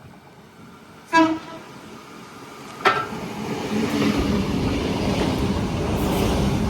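Sydney electric passenger train sounding two short horn blasts as it approaches, then running through the station without stopping, its wheels and motors making a loud steady rumble from about four seconds in.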